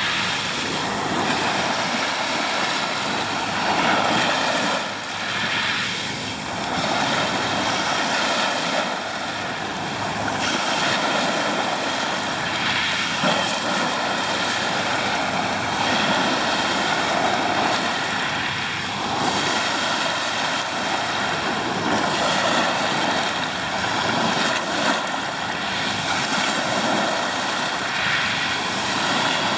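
Ocean surf: a steady rushing noise that swells and eases every few seconds.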